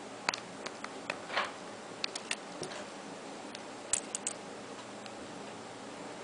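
Scattered light clicks and ticks from a small metal USB flash drive with a key ring being handled against a smartphone, with a short scrape about a second and a half in and small clusters of clicks near two and four seconds in. A steady hiss runs underneath.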